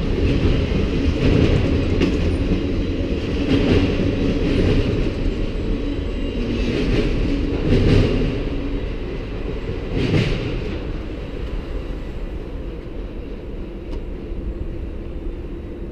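The last cars of a CN manifest freight train, autoracks among them, rolling past with a steady rumble and a few sharp wheel clacks. The rumble then dies away slowly as the train moves off.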